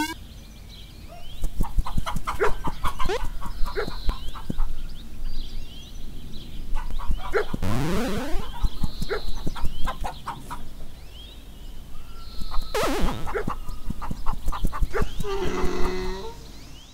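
Chickens clucking and squawking in repeated short calls, with a rising tone about eight seconds in and music underneath.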